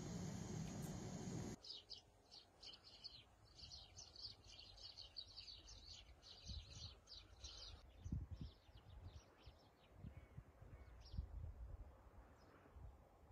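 Wild birds singing and chirping, dense for the first half and sparser later. It opens with a second and a half of steady hiss from a pot boiling on a gas burner, which cuts off abruptly.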